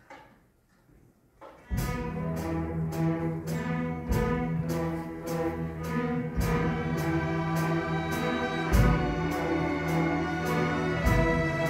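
A string orchestra of violins and cellos breaks in suddenly and loudly after a hushed pause, about two seconds in. It plays on with sharp, evenly spaced accents about three times a second.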